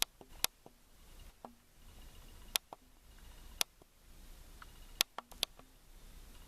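Plastic Lego bricks being handled and pressed together: about seven sharp clicks at irregular intervals, with a cluster of three about five seconds in.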